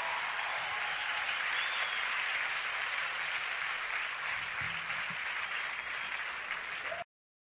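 Audience applauding, a steady dense clapping that cuts off suddenly about seven seconds in.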